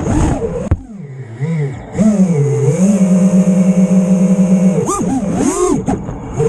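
FPV racing quadcopter's four brushless motors (Rotor Riot Hypetrain) spinning Lumenier Gatebreaker props, whining up and down in pitch with the throttle. The pitch drops away about a second in as the throttle is chopped, then comes back and holds steady for about two seconds. Near the end it swoops quickly up and down with sharp punches.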